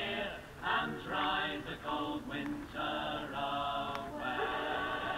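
Voices chanting a slow song in held notes, with short breaks between phrases.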